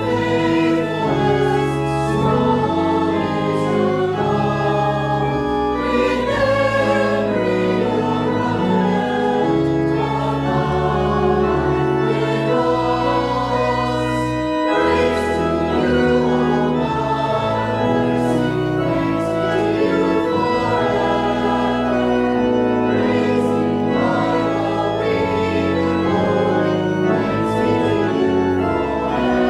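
Mixed church choir singing with organ accompaniment, in held chords that change every second or so.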